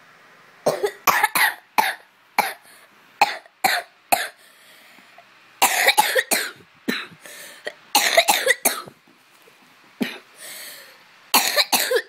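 A girl making short, forceful cough-like bursts and mouth noises right at the phone's microphone, in quick clusters of two to four with short pauses between.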